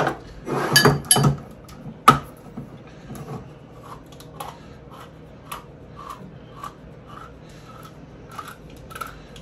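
An old hand-crank can opener cutting around a can of beans: a regular click-and-scrape about twice a second as the key is turned. It follows a few louder metal knocks in the first two seconds.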